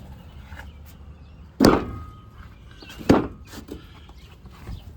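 Two loud knocks about a second and a half apart, the first trailing a short ringing tone, over a low steady hum.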